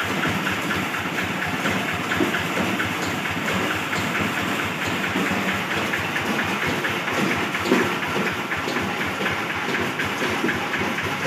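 Engine of a hand tractor converted into a small rice combine harvester, running steadily and driving the cutter, reel and threshing drum with a continuous fast mechanical rattle. There is one sharper knock about two-thirds of the way through.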